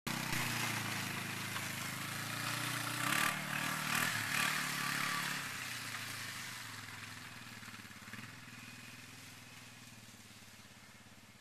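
ATV engine running, revving up in a few surges about three to five seconds in, then fading steadily as the quad rides away.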